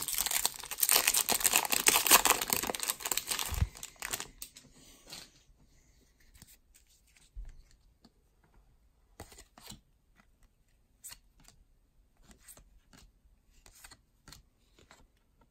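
A Topps baseball card pack's wrapper torn open, crinkling and tearing for about four seconds. Then the cards are slid and flicked through one by one with soft, scattered clicks.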